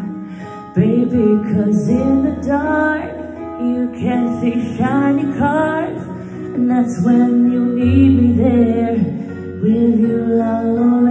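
A woman singing karaoke into a handheld microphone over a backing track, holding and sliding between notes.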